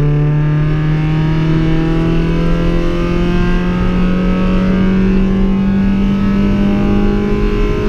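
Car engine accelerating under load in one gear, its note climbing slowly and steadily without a gear change.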